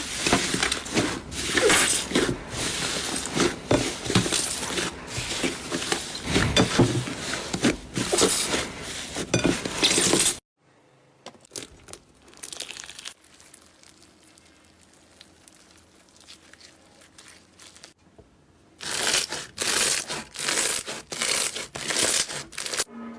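Slime being squeezed and pressed by hand, giving dense runs of crackling clicks and pops. The clicking breaks off abruptly about ten seconds in, leaving only faint sound for several seconds, then starts again near the end.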